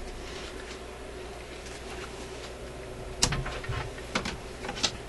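A steady low hum on the recording, then from about three seconds in a run of sharp clicks and knocks as a tube radio and tools are handled on a workbench.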